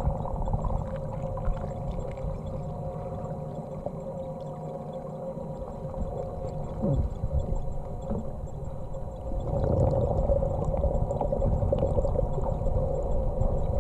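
Underwater sound in a swimming pool picked up by a camera below the surface: a steady hum with several held tones over a low rumble, growing louder and noisier from about ten seconds in.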